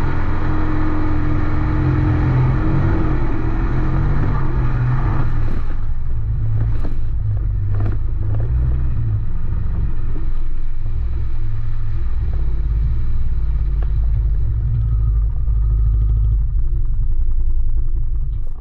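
Can-Am Defender Limited side-by-side driving along a trail, its engine running with a steady low rumble. For the first five seconds or so its tyres wash through muddy water, then a few sharp knocks sound.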